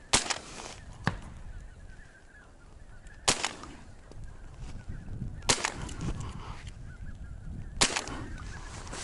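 Geese honking in a passing flock, with five sharp shotgun reports spaced one to two and a half seconds apart, each trailed by a short echo.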